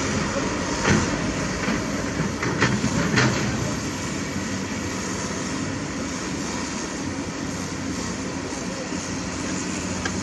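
Heavy diesel engines of a dump truck and an excavator running steadily, with a few sharp knocks about one second in and twice around three seconds in.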